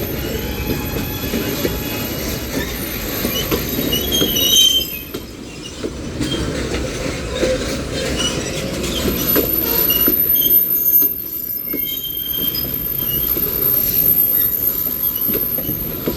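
Union Pacific mixed freight train cars rolling past, the steel wheels rumbling and clacking steadily over the rails. Brief high-pitched wheel squeals come through now and then.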